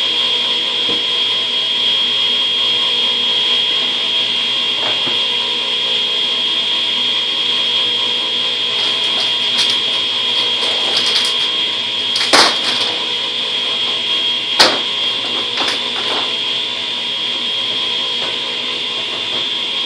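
Steady electric-motor drone of a running workshop machine, with a high whine over it. A few sharp knocks and clatters about twelve and fourteen and a half seconds in.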